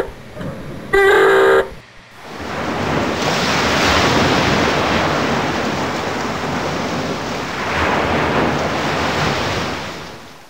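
Submarine surfacing alarm: the last of three short horn blasts about a second in, then a long rushing hiss of high-pressure air blowing the ballast tanks to surface. The rush swells quickly and fades slowly near the end.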